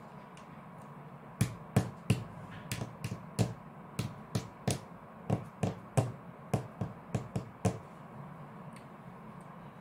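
Jigsaw puzzle pieces being picked up and set down on a table by hand, a string of about twenty sharp light clicks at an uneven pace that starts a second or so in and stops near the end.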